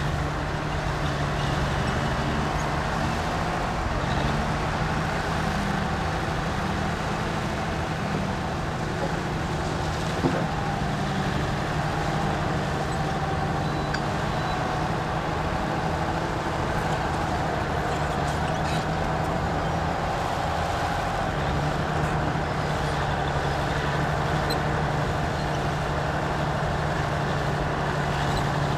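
Komatsu D60P bulldozer's diesel engine running steadily as it works, its note shifting a little over time, with one short sharp knock about a third of the way through.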